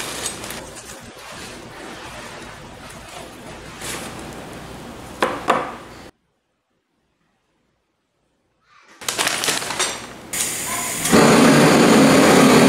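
Vacuum-sealed plastic packaging crinkling and crackling as it is cut and pulled off a slab of beef ribs, with a couple of sharper crackles about five seconds in. After a few seconds of dead silence, handling noise returns and a loud, steady rushing noise starts about eleven seconds in.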